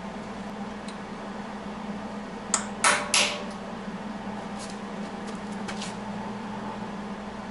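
Hammer striking a steel center punch on broken exhaust studs in an aluminium LS cylinder head, marking their centres: three sharp metallic strikes about two and a half seconds in, then a run of lighter taps about a second later, over a steady low hum.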